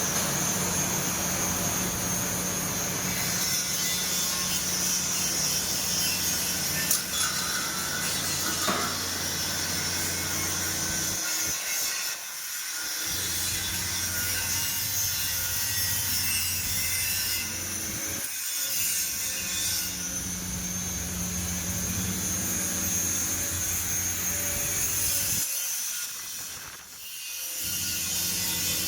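Electric arc welding: a steady crackling hiss over a constant electrical hum. The arc breaks off and restarts three times, about twelve, eighteen and twenty-six seconds in.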